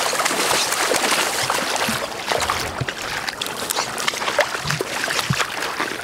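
A hooked coho salmon splashing and thrashing at the surface of shallow river water, loudest in the first two seconds, followed by a run of short splashes and crunches as it is drawn in through the shallows onto wet gravel.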